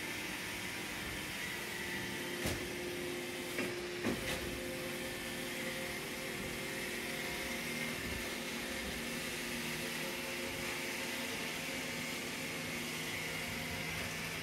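Steady low hum and hiss of room tone, with a few faint clicks about three to four seconds in.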